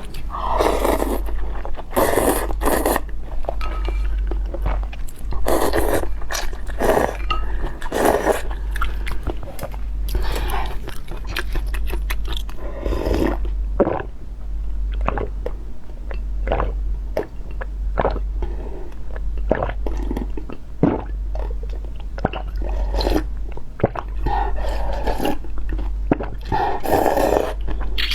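Close-miked eating: a person biting and chewing crunchy food, with irregular crunches and some scraping, and a steady low hum underneath.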